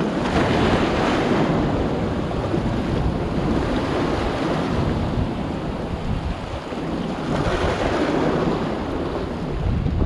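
Rough sea waves surging and washing against a rocky seawall, swelling twice, about half a second in and again around seven seconds later, with strong wind buffeting the microphone.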